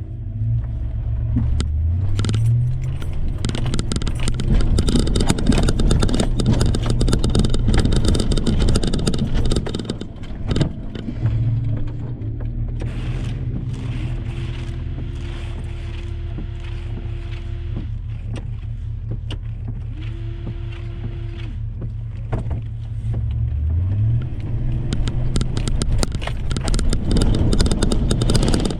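Toyota truck engine revving and pulling as it drives over rough trail, rising in pitch twice, with rattling and clatter from the body and tyres over the ground.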